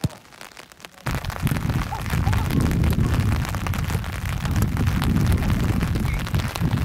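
Rain pattering on the microphone with a heavy, swelling wind rumble, starting abruptly about a second in.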